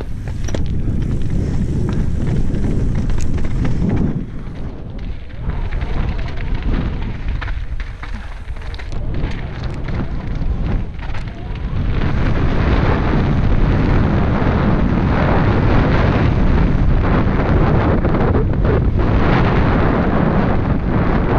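Commencal Meta SX mountain bike rattling and rumbling at speed down a loose, rocky trail, its tyres crunching over stones with frequent knocks, under heavy wind rush on the camera microphone. It gets louder and steadier about twelve seconds in.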